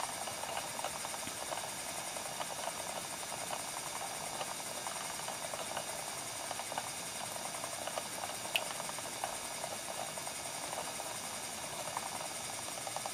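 Electric Eel Wheel Nano e-spinner running quietly, its motor, flyer and bobbin spinning with a steady whir and faint irregular ticking, and one sharper click about eight and a half seconds in. Soft brushed-cotton washers sit on the flyer shaft to damp the noise.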